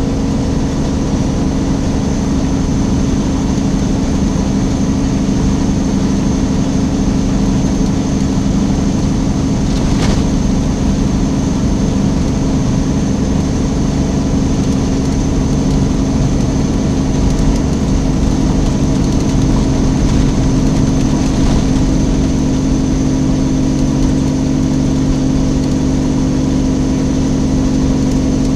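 Semi truck's diesel engine running at a steady pitch, heard from inside the cab as a constant drone with a faint high whine; a single click about ten seconds in.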